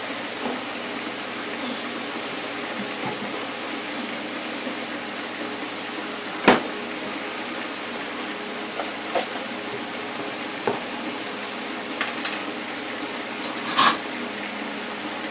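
Hot oil sizzling steadily in a small electric deep fryer as seafood fries, with a few sharp pops and crackles, the loudest about six and a half seconds in and another near the end.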